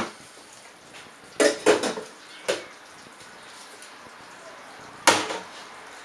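Kitchen clatter of dishes and a bottle knocking on a stainless-steel counter: three sharp knocks close together about a second and a half in, and one more about five seconds in as the bottle is set down.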